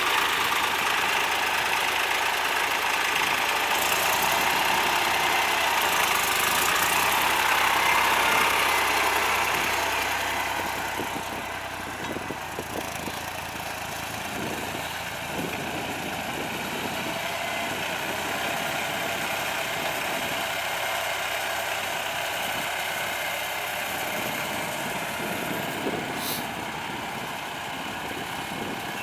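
John Deere 1020 tractor's three-cylinder gas engine running steadily. It is louder for about the first ten seconds, then settles quieter at idle. A single sharp click comes near the end.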